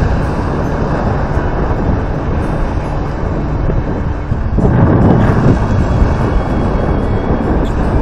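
Strong wind buffeting the microphone over choppy, wave-washed water, a steady rough rush with a louder surge about halfway through.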